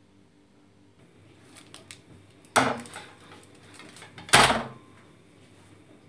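Metal tart pan clanking down onto a stainless-steel rod trivet: a few light clinks, then two loud metallic clanks about two seconds apart, each ringing briefly.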